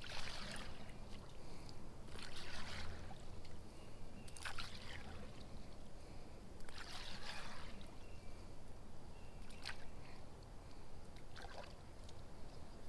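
A fishing lure jerked across the water's surface with rod twitches, splashing in short bursts about every two seconds.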